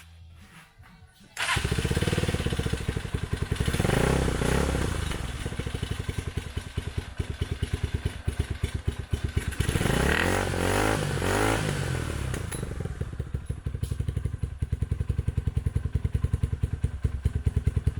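KYMCO KCR125's single-cylinder engine starting about a second and a half in, then running through an aftermarket slip-on silencer fitted with an inner baffle to quieten it. The revs are raised and dropped twice, about four and ten seconds in, then it settles to a steady idle.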